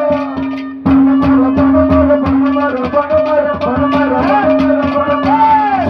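Haryanvi ragni folk music: a steady held drone note under quick hand-drum strokes and a wavering melody line, with a short dip in loudness just before a second in.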